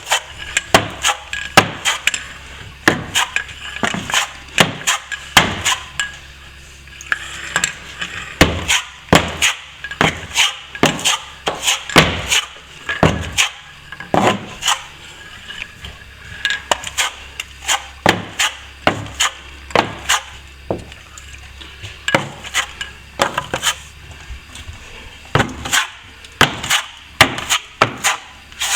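Steel plastering tools knocking and clinking sharply and irregularly, about one or two hits a second, as plaster is worked on with a trowel.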